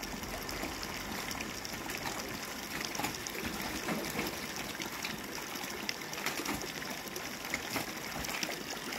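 Steady trickling of shallow water in a nearly drained fish pond, with faint small splashes and ticks scattered through.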